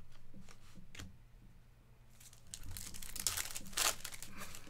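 A trading card pack wrapper of 2024 Topps Cosmic Chrome being torn open and crinkled, loudest about three to four seconds in, after a few light clicks near the start.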